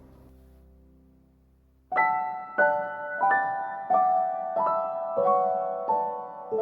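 Background piano music: after a faint fading tail, a slow melody begins about two seconds in, with a note or chord struck about every two-thirds of a second.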